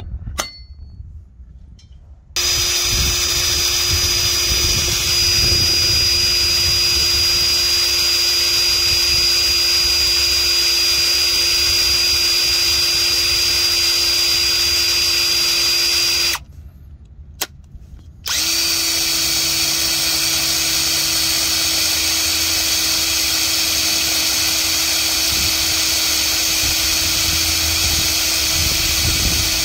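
Handheld power drill running steadily with a small bit, drilling a pilot hole into a broken steel bolt in a truck air dryer housing. It starts about two seconds in, stops for about two seconds around the middle, then runs again.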